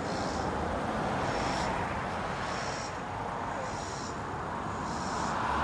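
Outdoor ambience: a steady background hum, with a high-pitched chirping call repeating evenly about every second and a quarter.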